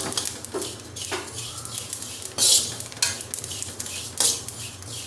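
Metal spoon scraping and stirring fennel seeds as they dry-roast over a low flame in a kadhai, in repeated uneven strokes about one to two a second, the loudest stroke about halfway through.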